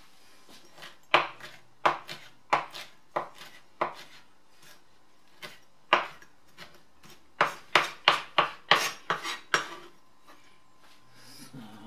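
Chef's knife chopping fresh herbs on a plastic cutting board: scattered single chops at first, then a quicker run of chops about seven seconds in.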